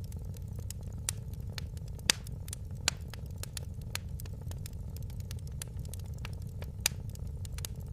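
Wood fire crackling in a fireplace: frequent sharp pops and snaps over a steady low rumble. A few louder snaps come about two seconds in and near the end.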